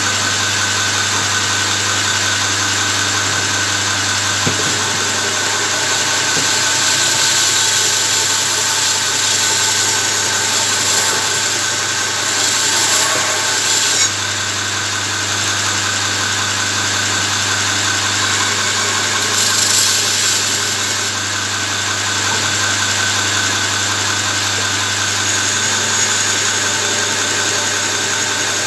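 Electric belt grinder running steadily, its motor humming, with the hiss of forged steel being ground against the abrasive belt. The grinding brightens for a few seconds around the middle and again later as the blade is pressed harder.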